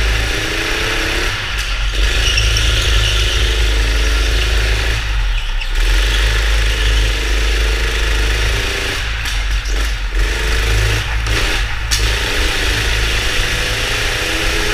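Go-kart engine heard on board, revving up along each straight and dropping off about four times as the throttle is lifted for corners.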